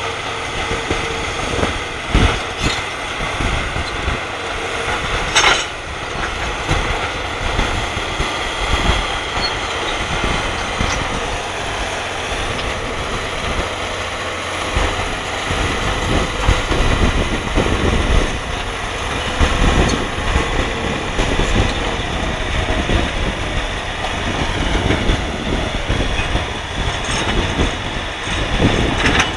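Caterpillar D7F crawler bulldozer's diesel engine working hard as it rips the ground with its rear ripper, with irregular clanking from its steel tracks.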